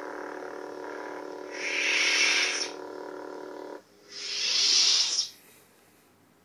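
Toy lightsaber's electronic sound effects: a steady buzzing hum with a swelling whoosh about two seconds in. The hum cuts off suddenly near four seconds, followed by one more hissing whoosh.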